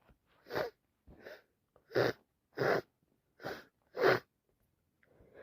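A person with a heavy, wet head cold sneezing in a quick run of six short sneezes, about one every two-thirds of a second, some louder than others; the last is the loudest.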